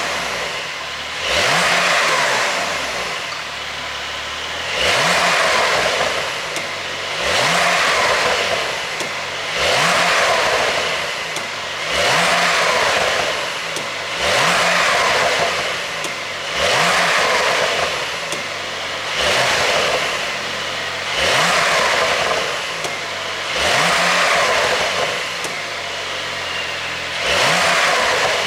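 Porsche 911 (992) Carrera's twin-turbo flat-six revved through its exhaust in repeated short blips, about a dozen, one every two to two and a half seconds. Each blip rises quickly in pitch, then falls back to idle.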